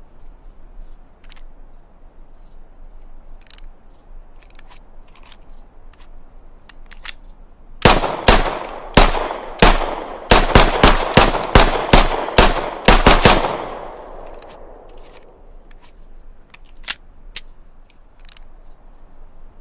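Browning Hi-Power pistol fired about a dozen times in quick succession, a few spaced shots first and then a faster string, with the last shot's echo dying away.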